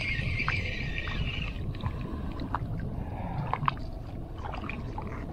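Wind and water noise around a small boat, with a high steady hiss that stops about a second and a half in and a few light clicks.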